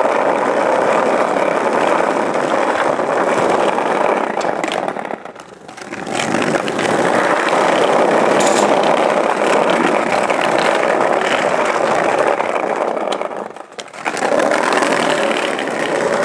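Skateboard wheels rolling over brick paving: a loud, steady rumble that drops away briefly twice.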